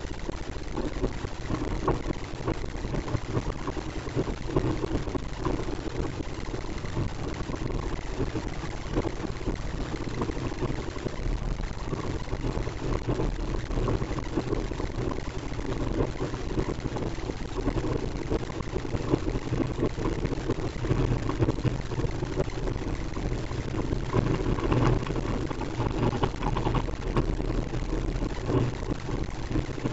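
Wind rushing over the microphone of a moving bicycle, with tyre noise from the asphalt road: a steady, dense rush with a low rumble underneath.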